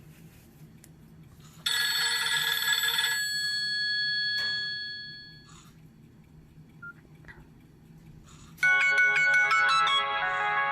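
Nokia 6682 ringtones playing through the phone's small speaker. A single chord sounds about two seconds in and fades out over a few seconds; after a pause, a fast melodic ringtone with quickly changing notes starts near the end.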